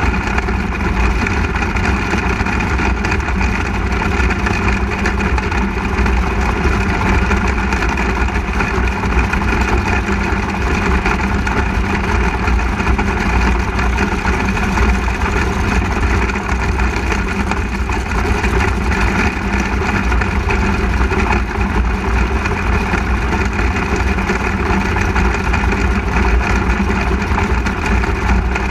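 A 360 sprint car's V8 engine running at a fairly steady pitch, heard from the car's onboard camera.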